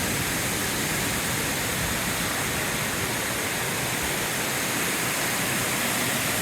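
Waterfall pouring into a river pool: a steady, unbroken rush of falling water.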